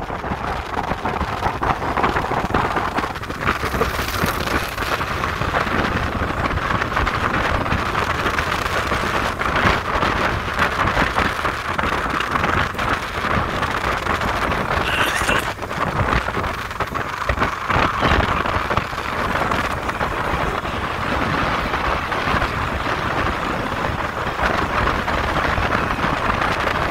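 Steady rush of wind on the microphone mixed with road and vehicle noise while travelling along a road at speed, with a few brief knocks from bumps.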